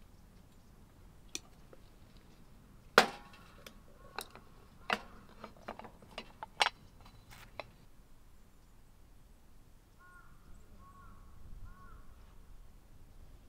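A string of sharp knocks and clicks, the loudest about three seconds in with a brief ring after it, then a bird calling a few times in short notes near the end.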